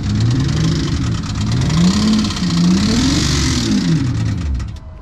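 BMW E38 ute's engine revving unevenly as the car pulls away, its pitch climbing and then falling, with a fast ragged ticking over the top. It sounds rough, which the owners put down to a connecting rod bent when the engine took in water.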